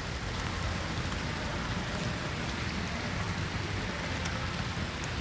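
Torrential rain falling steadily, a constant hiss of rain.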